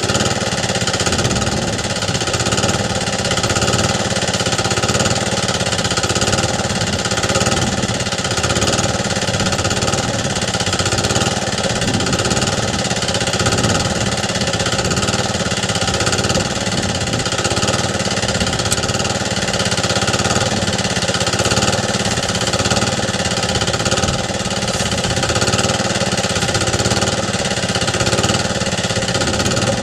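3 HP Briggs & Stratton single-cylinder gasoline engine driving a Craftsman air compressor, running steadily while the compressor pumps air for tire inflation.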